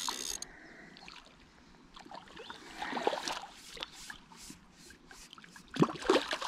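Hooked carp splashing and thrashing at the surface close to the bank while it is played in, with a short high-pitched rasp at the very start and the loudest splash about six seconds in.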